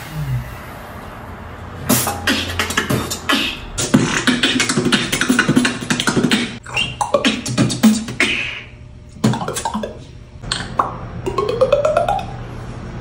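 Beatboxing: fast runs of sharp percussive mouth sounds, starting about two seconds in and breaking off briefly around nine seconds. Near the end a rising vocal sweep comes in among the clicks.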